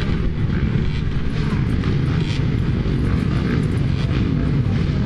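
A field of motocross bikes running together at the start gate, their engines blending into a loud, steady drone.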